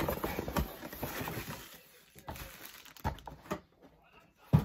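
Paper and packaging rustling as the contents of a box are handled, followed by a few light clicks and one sharper knock near the end.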